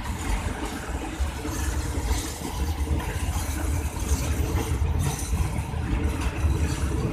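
Diesel engine of an Alsthom ALS diesel-electric locomotive, MTU-engined, running steadily under power with a deep rumble and a steady hum as it hauls a freight train away from a stop.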